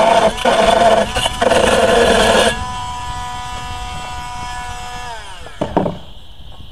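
Dremel rotary tool cutting into a greenhouse frame connector with a loud grinding whine. About two and a half seconds in the cut stops and the tool runs free with a steady whine, then winds down with falling pitch as it is switched off. A couple of short knocks come near the end.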